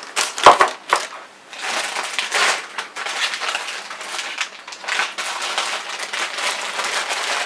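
Packaging crinkling and crackling as parts are handled and unwrapped, with a couple of sharp knocks about half a second in.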